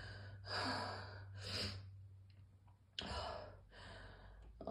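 A person's heavy, gasping breaths in a bout of morning coughing: about four noisy breaths in and out, one catching sharply about three seconds in.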